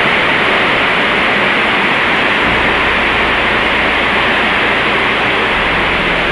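Heavy typhoon rain and rushing floodwater: a loud, steady hiss.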